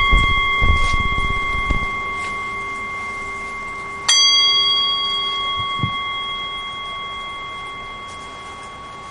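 Small Buddhist bell struck to open silent meditation. It rings with a clear, high tone that slowly fades. The ring of a strike just before is still dying away at the start, and a second strike comes about four seconds in. A few low thumps come in the first two seconds.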